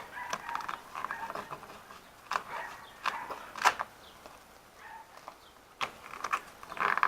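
Scattered clicks and short rustling scrapes of a fabric flap being handled and pressed onto freshly applied hook-and-loop (Velcro) strips.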